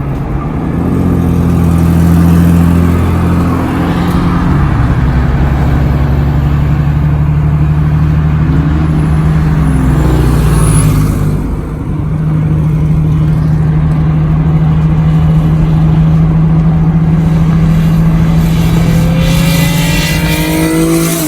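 Car engine and exhaust under way, a loud steady drone whose pitch shifts a few times. The revs climb near the end.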